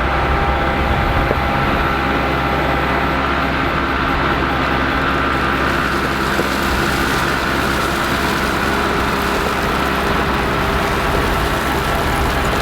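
An engine running steadily at a constant speed, with a low drone and some steady higher tones. More hiss comes in partway through.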